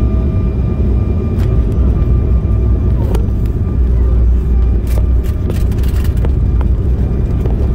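Airliner cabin noise on the landing roll: a loud, steady low rumble of the engines and the wheels on the runway, with a faint steady engine whine above it. Several short knocks and rattles from the cabin come in the middle.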